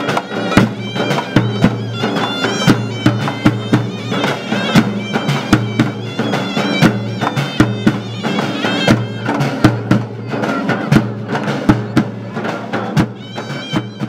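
Tunisian folk music: frame drums beat a fast, dense rhythm under a reedy wind melody played over a steady drone.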